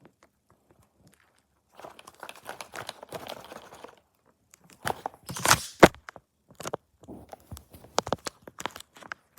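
Packaging being opened during a keyboard unboxing: crinkling and rustling, then a loud tear with a sharp click about five to six seconds in, followed by scattered clicks and rustles.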